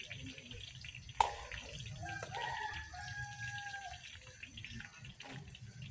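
Steady sizzling and bubbling from a wok of melted margarine and chili sauce stirred over a wood fire, with one sharp clack of the metal spatula on the wok about a second in. A rooster crows once about two seconds in.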